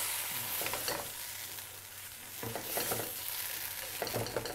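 Curry sauce of base sauce and tomato puree sizzling in a hot wok while a spatula stirs it round, with a few scrapes against the pan. The sauce is being fried hard so that it caramelizes.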